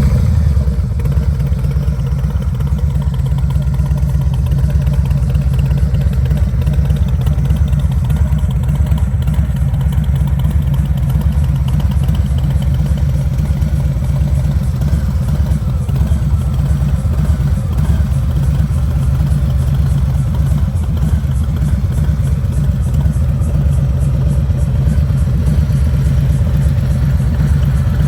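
Harley-Davidson Street Bob 114's Milwaukee-Eight 114 V-twin idling steadily through a Rinehart slip-on exhaust, a deep, even exhaust note.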